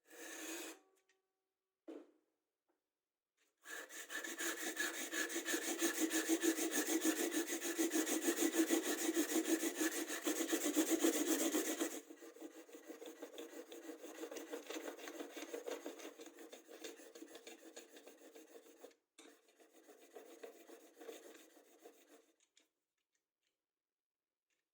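A blade clamped in a sharpening jig is being rubbed back and forth over an abrasive in quick, steady strokes. The strokes are loud for about eight seconds, then continue more lightly, with a short break, until about 22 seconds in. A couple of short knocks come before the strokes begin.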